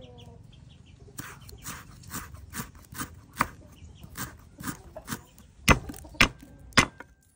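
Food being chopped with a knife on a wooden cutting board, in steady strokes about two a second, the last few strikes harder and louder.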